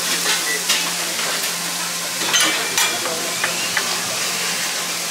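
Commercial kitchen noise: a steady frying sizzle and hiss over a low hum, with a few sharp clinks of metal utensils and pans.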